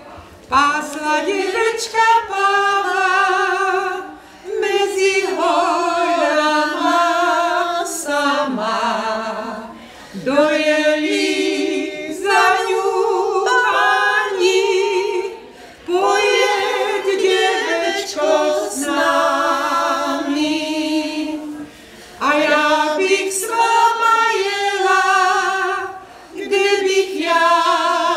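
A cappella choir singing, several voices in harmony with vibrato, in phrases of a few seconds with short breaks between them.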